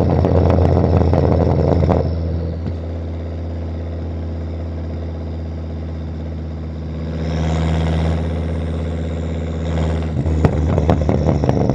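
Catless exhaust of a Volvo S60 2.5T's turbocharged five-cylinder engine: popping and crackling under load at first, settling to a steady drone after about two seconds. It swells again with a high whistle rising and falling around the middle, and the popping returns near the end.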